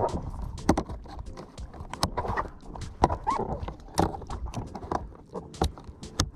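Irregular knocks and clicks, several a second, on a sit-on-top plastic fishing kayak at sea.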